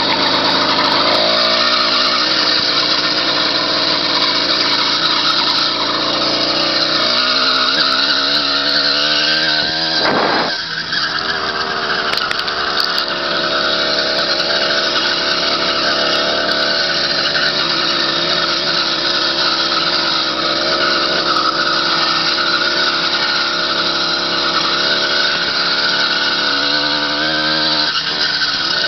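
A motorized bicycle's 80cc two-stroke kit engine running while riding, its pitch shifting up and down several times, with a short dip in loudness about ten seconds in.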